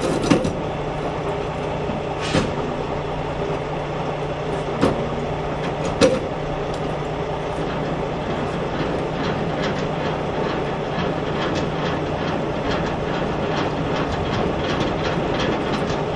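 Semi-trailer landing gear being wound by hand: the crank handle turning the landing-gear gearbox with a rattling mechanical clatter, a few sharp clanks in the first six seconds and then a quick run of small ticks, over a steady low drone.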